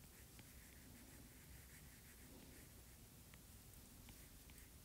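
Near silence with a few faint ticks of a stylus tip on a tablet's glass screen as lines are drawn.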